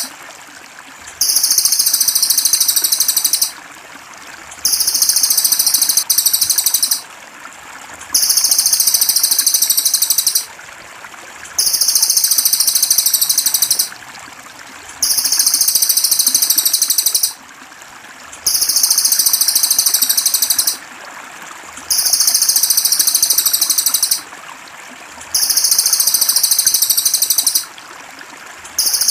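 Cililin masteran recording: a loud, high, rapid buzzing trill about two seconds long, repeated about every three and a half seconds, over steady trickling water.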